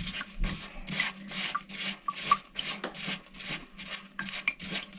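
Quick, repeated scraping strokes, about three to four a second, from tightening a fitting on a toilet's water supply connection in a cramped space.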